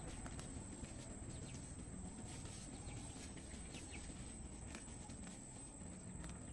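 Faint outdoor ambience with scattered light clicks and rustles and a thin, steady high-pitched whine.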